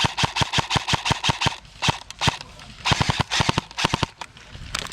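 Airsoft rifle firing on full auto at about nine shots a second. A long burst runs through the first second and a half, two single shots come around two seconds, another burst comes around three seconds, and a couple of shots land near the end.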